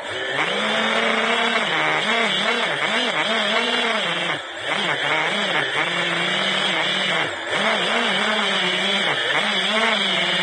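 FPV quadcopter's electric motors and propellers whining, the pitch rising and falling continually as it manoeuvres. The sound dips briefly twice, about four and a half and seven seconds in.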